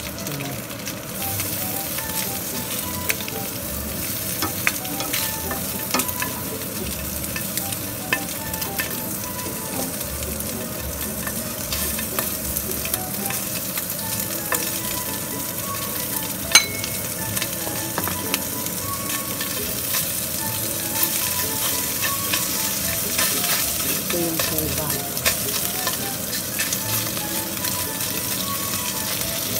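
Slices of kielbasa sizzling in oil in a nonstick frying pan, a steady hiss broken by occasional clicks and taps of a spatula on the pan, one sharper click about halfway through.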